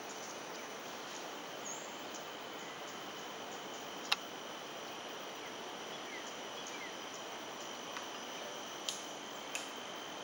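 Outdoor ambience of steady insect trilling with a few faint bird chirps over a noise haze. A sharp click sounds about four seconds in, and two softer clicks come near the end.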